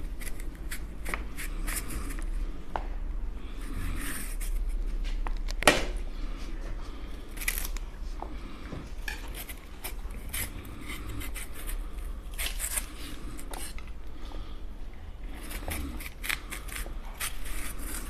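Kitchen knife peeling the skin off raw green bananas: repeated short scrapes and clicks of the blade, with one sharper knock about six seconds in.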